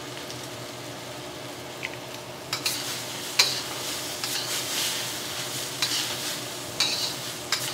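Stir-fried rice noodles and vegetables sizzling in a carbon steel wok. From about two and a half seconds in, a metal wok spatula scrapes and clacks against the wok several times as the noodles are tossed.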